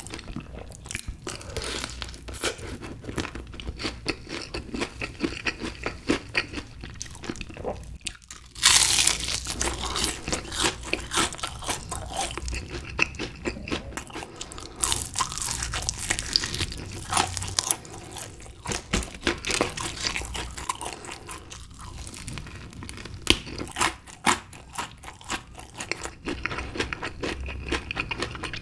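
Close-miked crunching and chewing of honey-glazed fried chicken, crisp bites into the coated skin, with the loudest crunches about nine and fifteen seconds in.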